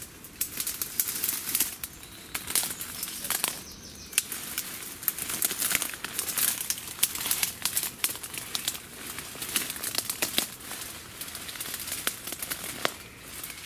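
Undergrowth rustling and crackling, with many sharp irregular snaps of twigs and leaves, as someone pushes through it on foot.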